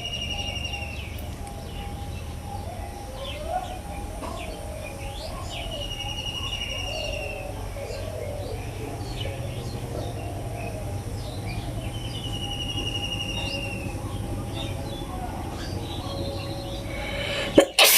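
Birds chirping and calling over a low steady rumble, one bird repeating a short trill about every six seconds. Near the end there is a brief loud noise, and the background then drops away abruptly.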